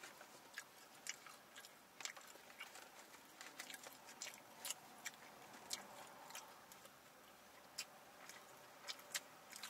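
Faint chewing of two people eating chicken and fries, heard as scattered soft, irregular mouth clicks.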